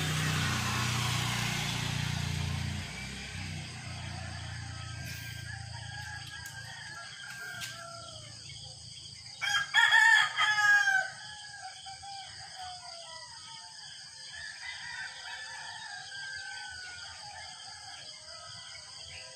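A rooster crows loudly about ten seconds in, with fainter crowing from roosters farther off at other moments. A low rumble fades out over the first few seconds.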